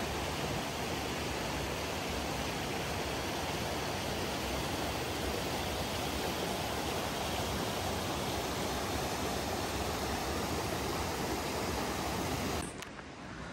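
Mountain stream rushing over boulders in small cascades, a steady even rush of water. It cuts off abruptly shortly before the end.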